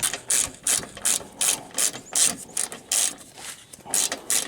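Hand socket ratchet clicking in quick back-and-forth strokes, about two to three a second, as a fastener holding the car's underbody splash shield is backed out.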